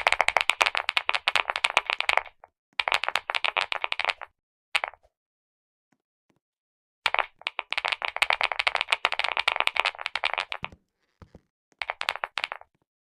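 Fast typing on a mechanical keyboard with clicky switches: dense runs of sharp key clicks lasting one to a few seconds, separated by short pauses, with a silent break of about two seconds midway.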